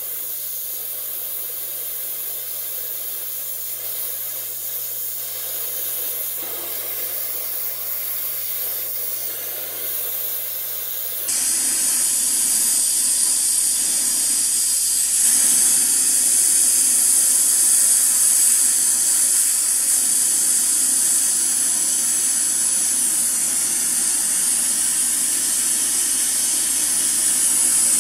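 Oxy-acetylene torch flame hissing steadily while brazing a copper line joint with 15% silver solder. The hiss turns abruptly louder about eleven seconds in.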